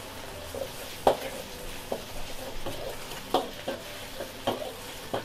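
Metal ladle scraping and clanking against a wok as chicken and egg are stir-fried in sizzling oil: a steady frying hiss with sharp clanks at irregular intervals, the loudest about a second in.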